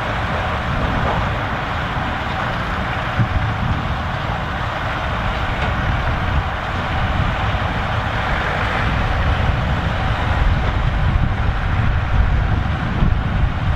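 Massey Ferguson 3070 tractor's diesel engine running steadily at work in the field, growing a little louder in the second half.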